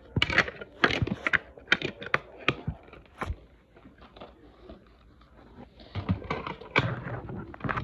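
Plastic playset pieces and packaging being handled, clicking and knocking. A quick run of clicks lasts about three seconds, then a lull, then more clatter with rustling near the end.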